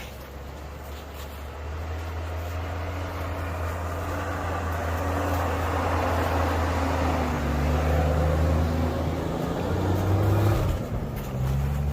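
Jeep Cherokee engine working under load while driving off-road, its revs rising and falling as it grows louder, with a brief drop near the end before it picks up again.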